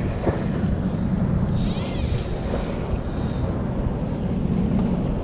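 Wind buffeting the microphone over choppy open sea, a steady low rumble of wind and water, with a brief higher hiss about two seconds in.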